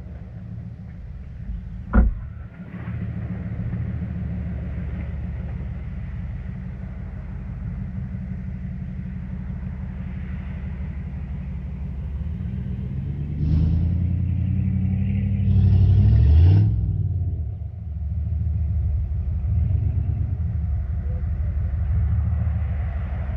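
Jeep Gladiator Rubicon's V6 engine idling steadily, with a single sharp knock about two seconds in. Past the middle, an off-road vehicle's engine revs up and down louder for a few seconds, then settles back to the idle.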